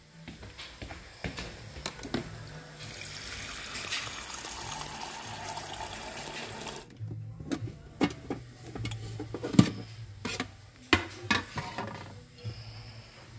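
Keurig single-serve coffee maker brewing into a ceramic mug: a low machine hum with a stream of liquid pouring in. The pour stops abruptly about seven seconds in. A run of clicks and knocks follows over the hum.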